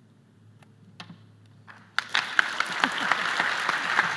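Audience applause at the end of a conference talk: a few isolated claps, then the whole room starts clapping abruptly about halfway through and keeps going.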